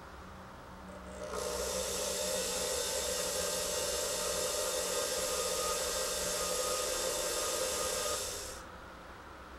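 Small power tool running steadily on acrylic for about seven seconds, starting about a second in and cutting off near the end.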